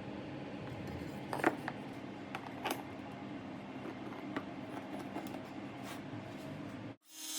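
Scattered light clicks and knocks of wooden pieces and a clamp being handled, over a steady hum. The sharpest knock comes about a second and a half in, and the sound cuts off abruptly near the end.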